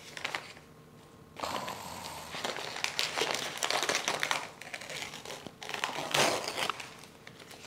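Packing paper crinkling and rustling as it is pulled open from around a plant, in irregular spurts that start about a second and a half in and die away near the end.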